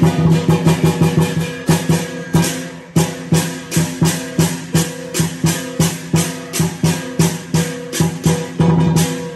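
Lion dance percussion: a Chinese drum with crash cymbals and gong beating a steady rhythm of about three strikes a second. The strikes come in fast flurries at the start and again near the end.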